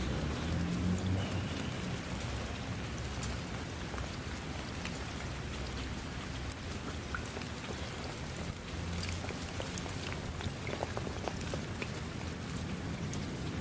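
Steady rain falling, an even hiss with many separate drop impacts ticking through it.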